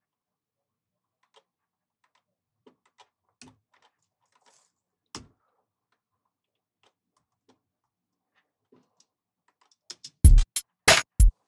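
Faint, scattered computer mouse and keyboard clicks, then about ten seconds in a programmed hip-hop drum loop starts playing: several loud, punchy drum hits in quick succession.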